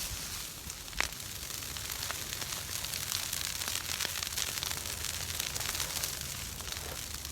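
Large bonfire of fallen tree branches crackling and hissing, with a dense run of small pops and one sharp louder pop about a second in. A low rumble of wind on the microphone sits underneath.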